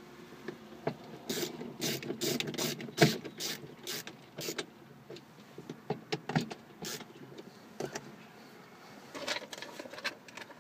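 Plastic clicks, knocks and rattles from the overhead map light and console assembly of a 2008 Subaru Outback as it is handled and pushed into place in the headliner. A quick run of sharp clicks comes in the first half, then a few more near the end.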